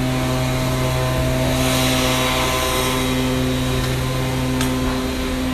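A steady, even machine hum with a low drone, with a short rush of hiss about two seconds in.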